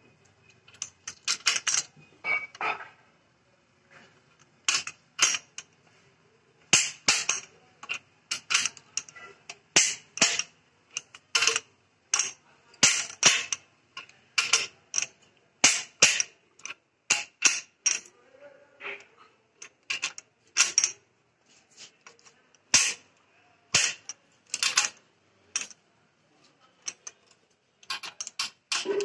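Click-type torque wrench, set to 18 kg, being worked on the crankshaft main bearing cap bolts of a Swaraj tractor engine. It gives sharp metallic clicks in irregular short runs, several a second, with pauses between, as the bolts are brought up to torque.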